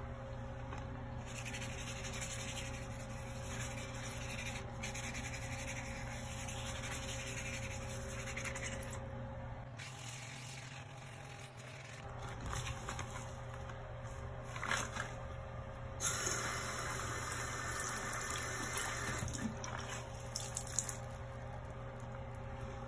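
Sponge scrubbing a bathroom sink basin with rubber-gloved hands, a wet swishing in uneven bursts over a steady low hum; a few sharp clicks of handling in the second half.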